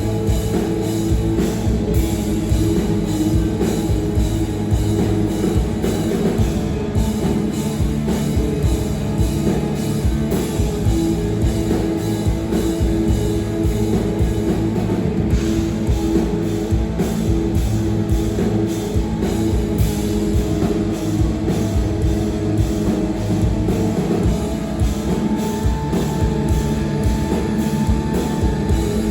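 Live rock band playing loud and steady, with drum kit and electric guitar to the fore.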